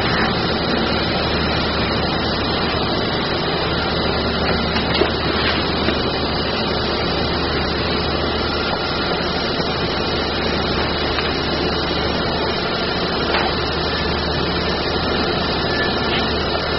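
Steady mechanical drone and hiss of waterjet cutting machinery, with a low hum and no starts or stops; the machine is paused between cuts.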